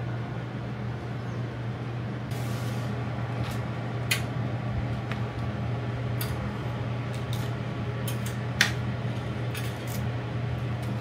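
Metal tongs clicking and clinking against a stainless wire rack and tray while fried chicken is lifted into a bento box, a few sharp clicks with the loudest about four seconds in and again near nine seconds. Under it runs a steady low kitchen hum.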